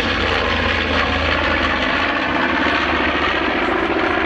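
Twin Wright R-2600 fourteen-cylinder radial engines of a B-25 Mitchell bomber running in flight as it passes overhead, a loud, steady drone with no break.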